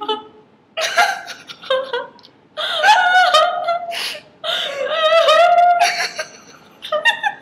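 Young women laughing in four bouts with short pauses between, some of it drawn-out and high-pitched.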